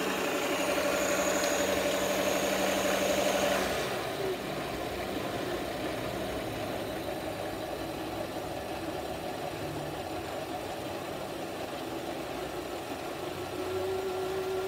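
Busy Bee mini lathe running, its motor fed through a variac, the chuck spinning while the tool cuts a metal workpiece and peels off curled chips. A steady hum for the first few seconds turns rougher and noisier about four seconds in, and a new steady tone comes in near the end.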